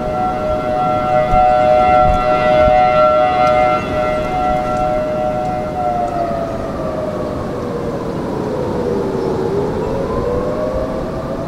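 Distant 1980 Federal Signal Thunderbolt 1003A siren sounding its Attack cycle: a two-tone chord held steady, then sliding down in pitch about six seconds in and climbing again near the end. Strong wind noise runs underneath.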